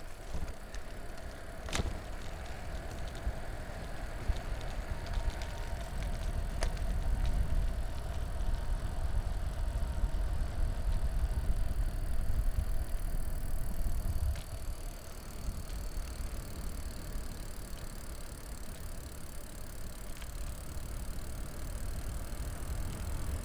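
Recumbent trike coasting downhill: rumbling wind on the microphone and tyre noise, louder through the middle, with a faint steady hum and a couple of sharp clicks early.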